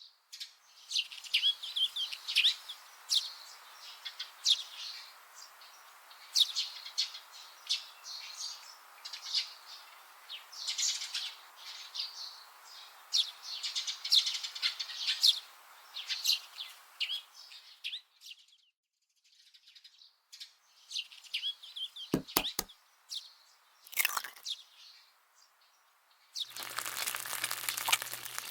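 Birds chirping, many short quick calls over a faint steady hiss, fading out briefly and returning more faintly. Past the middle come a quick run of sharp clicks and another single click, and near the end a loud steady hiss with a low hum starts.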